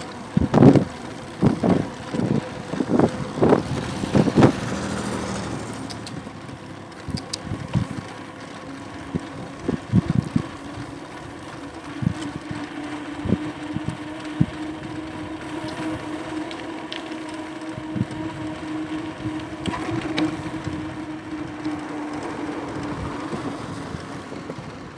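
Riding noise of an Aostirmotor S17 e-bike picked up by a chest-mounted action camera. A run of sharp knocks and rattles fills the first few seconds, with a few more later. Then a steady hum runs over constant wind and tyre noise.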